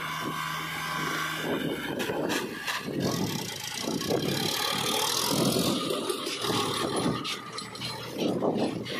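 Sonalika DI 745 tractor's diesel engine running as it pulls a trailer loaded with mud. A steady engine hum in the first second or so gives way to uneven rumbling with scattered knocks.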